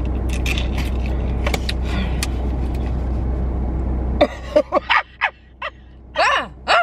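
Steady low rumble of a car's engine idling in a parked car, which cuts off abruptly about four seconds in. A few short voice sounds follow.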